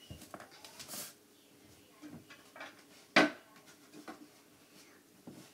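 Scattered knocks and handling bumps as someone moves about and shifts a small chair, with one sharp knock about three seconds in.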